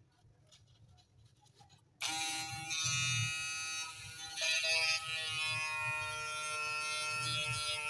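The small DC motor of a homemade mini drill switches on about two seconds in and runs with a steady whine, its pitch settling after a brief wobble.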